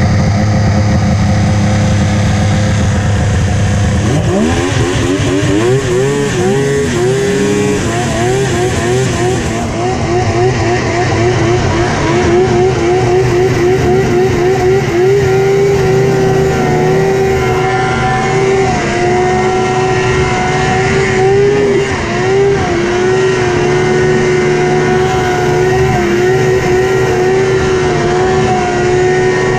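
Yamaha SXR 700 snowmobile's 700 cc three-cylinder two-stroke engine idling, then revving hard about four seconds in. It then holds high revs as the sled skims across open water, the pitch wavering up and down.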